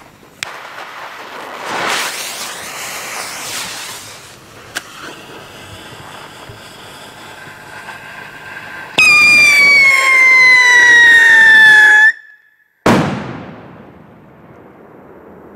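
Scream Rocket No. 4 firework: a fizzing hiss, then a very loud, shrill screaming whistle lasting about three seconds, its pitch sinking slightly, that cuts off abruptly. Moments later comes a sharp bang that rings away.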